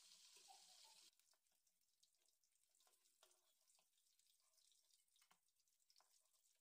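Near silence, with faint scattered crackles and pops from fish frying in hot mustard oil in a kadhai.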